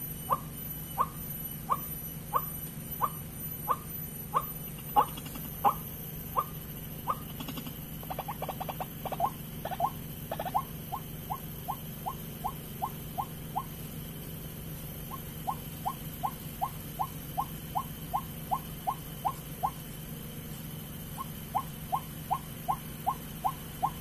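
White-breasted waterhen calling: a long run of short, sharp notes repeated about twice a second, with a quicker flurry around the middle and two brief pauses later on, over a steady low hum.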